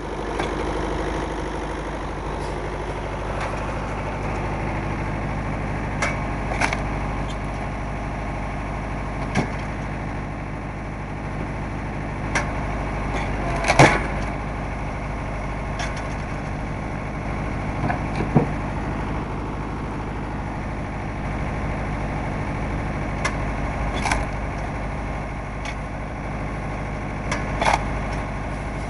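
An engine running at a steady idle, with a dozen or so sharp knocks and clicks, the loudest about halfway through.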